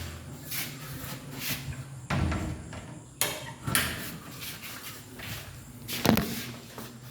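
A few sharp knocks and clatters, as of hard objects being handled or set down, the loudest about six seconds in, over a faint steady low hum.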